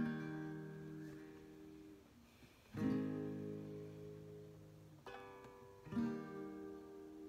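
Acoustic guitar playing a slow intro: four strummed chords, near the start, about three seconds in, a lighter one about five seconds in and another about six seconds in, each left to ring and fade.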